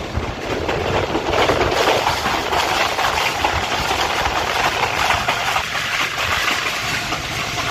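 Tez Gam Express passenger train running along the track: a steady loud rush of noise laced with many quick rattling clicks from the wheels and carriages.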